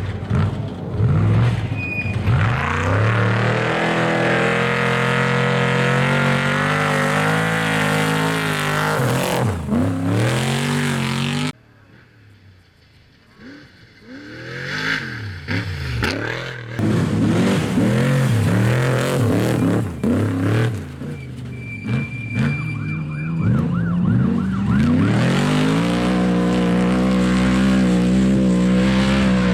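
Off-road race truck's engine at full throttle, its pitch climbing and dropping through the gears as it speeds past. About eleven seconds in the sound cuts abruptly to a quieter stretch, then the engine approaches and runs loud again, climbing in pitch near the end.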